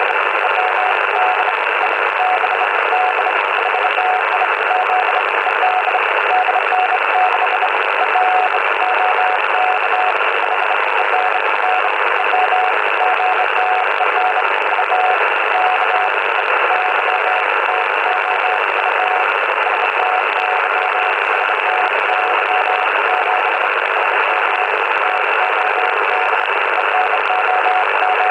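Morse code (CW) from an amateur radio contact on the 40-metre band, heard through a Yaesu FT-80C transceiver's speaker. It is a single pitched tone keyed in dots and dashes over a steady band of receiver hiss.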